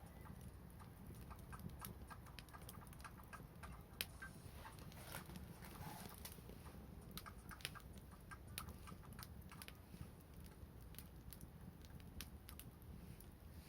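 Wood fire crackling, with irregular sharp pops and ticks as the wood burns and one louder pop about four seconds in, over a low steady rumble.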